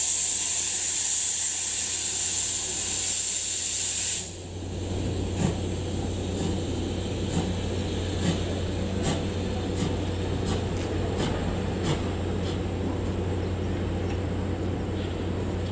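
C11 steam tank locomotive letting off a loud hiss of steam, which cuts off suddenly about four seconds in. After that, as the locomotive and brake van roll slowly away, the sound is quieter, with a steady low hum and light clicks roughly once a second.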